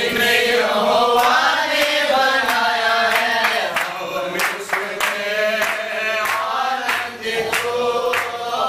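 A group of people singing together, with hand claps keeping a steady beat about every two-thirds of a second.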